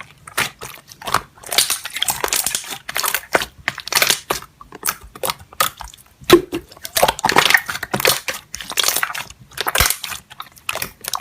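Slime being squeezed, pressed and pulled by hand, with a steady run of irregular crackling, popping and squishing sounds.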